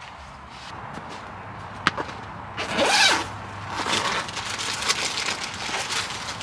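Nylon fabric rustling and one sharp click, then a zipper on a soft carry bag pulled open and the bag's contents rustling as they are handled.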